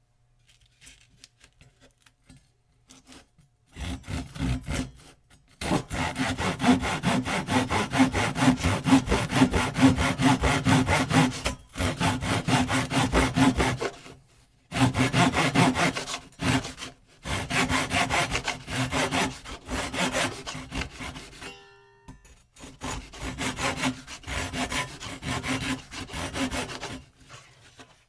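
Hand saw cutting wood in quick back-and-forth strokes: a few light scratchy strokes to start the cut, then steady sawing broken by several short pauses.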